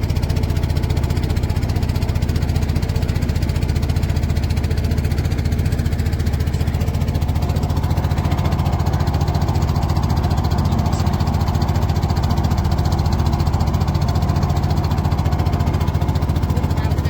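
Small river boat's engine running steadily under way, a constant low engine note with rapid even firing.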